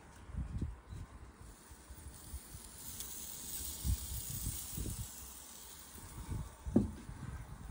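Soft hiss from the hot grates of a Weber electric grill, starting about three seconds in and lasting about three seconds, over scattered low bumps, the loudest near the end.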